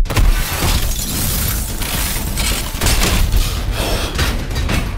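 Glass shattering as a bus's windows are smashed in with a hammer, with repeated sharp crashes and blows throughout.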